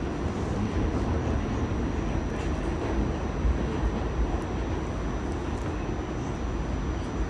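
R46 subway car running along the track, heard from inside the car: a steady rumble of wheels and running gear, with a thin, steady high-pitched tone over it and a few faint clicks.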